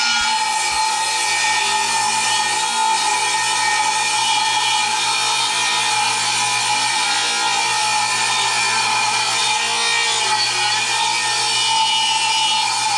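Craftsman radial arm saw running steadily and rip-cutting lengthwise along a long wooden board, the blade in continuous cut.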